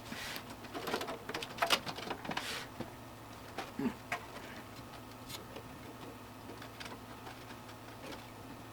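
Light plastic clicks and rustling of computer cables and connectors being handled and pushed toward their sockets inside a PC case, busiest in the first four seconds, then only a few faint clicks over a faint steady hum.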